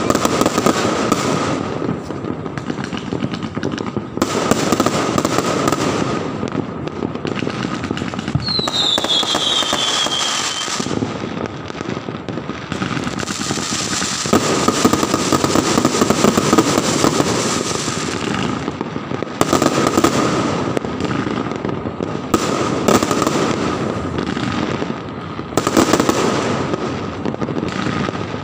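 New Year fireworks and firecrackers going off without pause, a dense crackle of bangs and pops, with a short falling whistle about nine seconds in.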